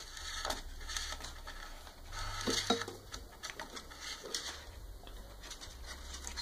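Rustling and light scraping of a printer's motor cable being pulled through a slot in the frame, with a few small clicks and knocks as the wires rub against the frame.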